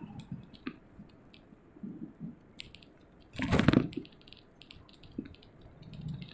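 Light, irregular clicks and rattles from a bicycle rolling downhill on a paved road. A short, louder rush of noise comes about three and a half seconds in.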